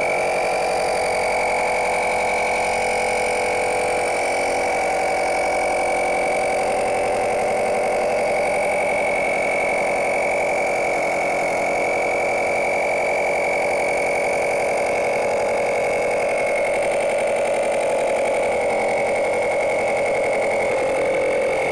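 A 12 V portable mini air compressor's small piston pump runs steadily under load, inflating a motorcycle tyre. It is switched off and cuts out suddenly right at the end.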